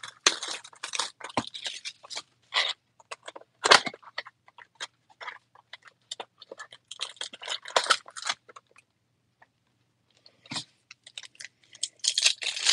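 A cardboard Topps Finest mini box being opened and the foil trading-card packs inside handled: irregular bursts of crinkling and scraping with sharp snaps, a lull of about a second and a half, then a dense stretch of crinkling near the end.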